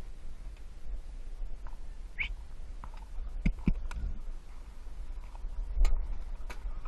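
A horse walking under its rider, heard from the saddle: a few scattered knocks and clicks over a steady low rumble, with one short high chirp about two seconds in.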